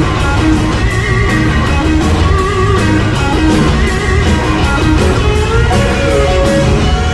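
Blues-rock band playing: an electric guitar line over bass and drums, with a steady beat.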